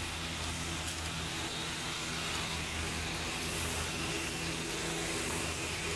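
Steady low mechanical hum made of several held tones over an even hiss, at a constant level.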